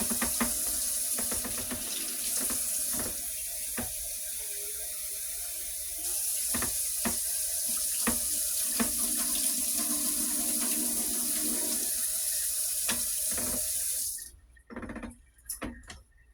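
Kitchen tap running into the sink, growing louder about six seconds in, with short clinks and knocks of dishes. The water is shut off about fourteen seconds in, followed by a few more clinks.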